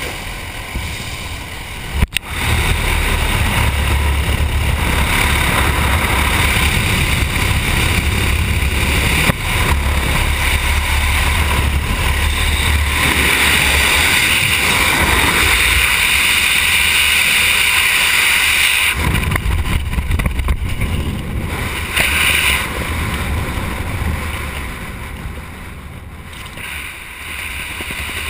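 Engine and wind noise through the open door of a small high-wing jump plane, then about two seconds in a sudden change to loud, steady freefall wind buffeting the helmet camera's microphone. The wind noise eases somewhat near the end.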